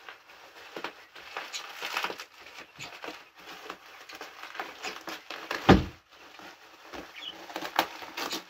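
Plastic bubble wrap crinkling and crackling in irregular bursts as it is pulled and unwrapped by hand, with one dull thump a little past halfway.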